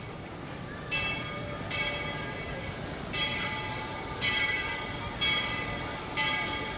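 A steam locomotive's bell ringing, six strikes about a second apart, each starting sharply and ringing on, over a steady low rumble of the train.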